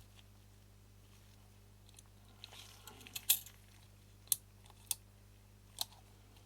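Small metal parts of a Mamiya-Sekor C 127mm lens being handled and fitted onto the lens housing. A short scrape is followed by four sharp, light clicks spread over about three seconds.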